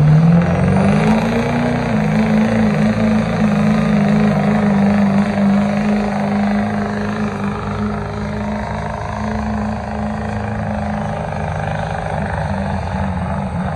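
Diesel pickup truck engine at full throttle pulling a weight-transfer sled: its pitch climbs over the first couple of seconds, then holds steady at high revs, a little fainter in the second half as the truck moves down the track.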